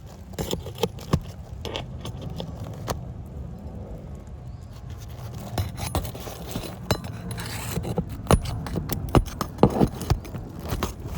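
Irregular scraping and sharp metallic clinks of hand tools working loose asphalt roof shingles, thicker toward the end, over a steady low rumble.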